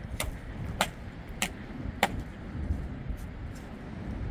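Metal shovel blade striking and scraping into wet, stony soil: four sharp strokes about half a second apart in the first two seconds. Wind rumbles on the microphone underneath.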